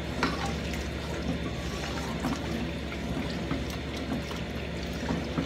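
Wooden spoon stirring chicken broth in a large nonstick pot: the liquid swishes and sloshes steadily, with small scrapes and taps of the spoon against the pot, one a little louder just after the start.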